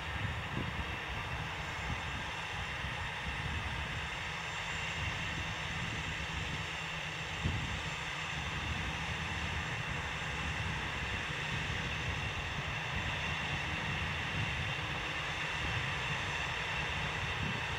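Versatile 550 articulated tractor's Cummins 15-litre six-cylinder diesel engine working steadily under load while pulling a cultivator through a headland turn, a continuous drone with a rough low rumble. One brief knock sounds about seven seconds in.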